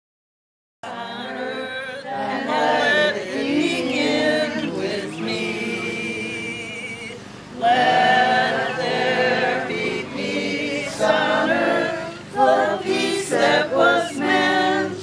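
A group of voices singing together unaccompanied, in phrases with a short break in the middle; it starts suddenly about a second in.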